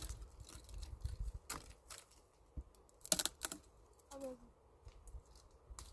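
Irregular sharp clicks and knocks, the loudest about three seconds in, with a brief falling voice sound a little after four seconds.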